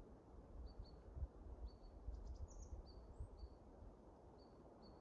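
Near silence outdoors, with small birds giving faint, short, high chirps about once a second, some in quick pairs, over a low rumble.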